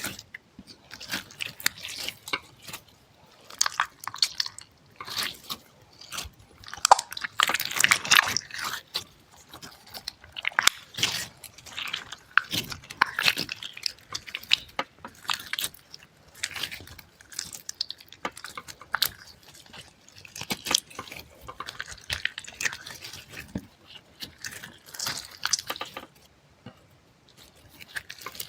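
Close-miked ASMR sounds: a steady stream of short, irregular wet crackles, clicks and crunches, like soft or squishy material being bitten or squeezed.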